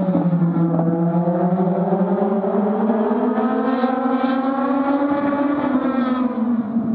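Legend race car's engine heard up close, running at low speed. Its pitch climbs slowly over the first few seconds and eases back down near the end.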